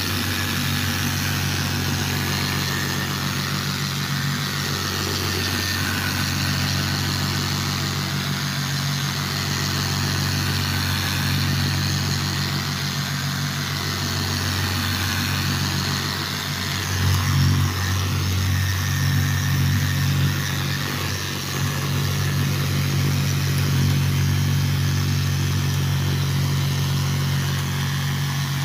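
Hand-held electric angle polisher running steadily with an 800-grit polishing pad pressed on a wet stone bench top, grinding out a scratch. The motor hum grows louder and uneven for a few seconds past the middle.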